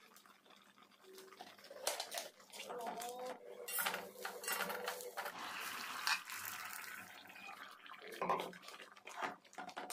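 Cooking sounds: utensils knocking and scraping against a clay pot, with splashes of liquid and a series of sharp clicks and knocks.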